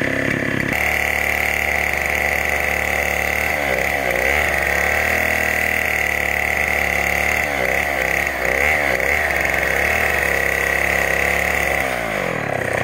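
Chainsaw engine running at a steady speed, then dropping in pitch near the end as it slows back toward idle.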